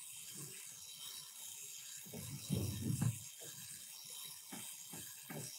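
Motor-driven diecast metal four-cylinder engine model running, its pistons, crankshaft and valve tappets turning with a light, uneven clicking of small metal parts, a few clicks a second, a little louder about two and a half seconds in.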